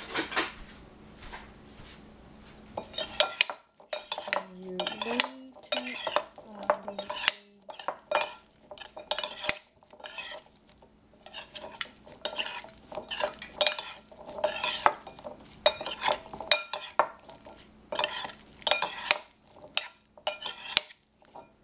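Metal spoon and fork tossing diced cucumber and capsicum in a ceramic bowl: irregular clinks and scrapes of cutlery against the bowl, sparse at first and frequent from about three seconds in.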